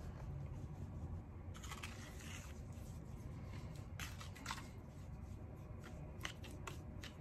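Plastic spoon stirring a thick baking soda and water paste in a bowl: faint soft scraping, with a few light clicks of the spoon against the bowl in the second half.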